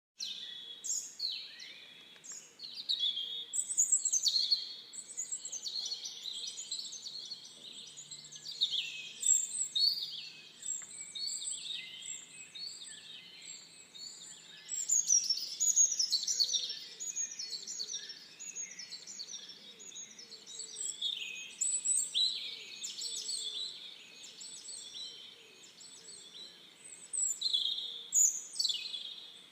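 Songbirds singing in spring, a continuous stream of quick, high chirping phrases made up of many rapid falling notes.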